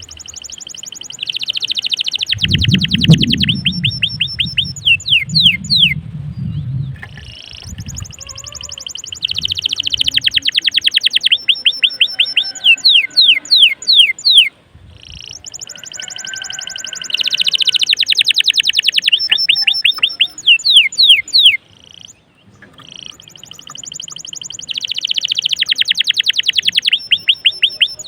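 Domestic canary singing in full song: four long phrases, each a fast, high rolling trill that ends in a run of quick descending whistled notes, with a short pause between phrases.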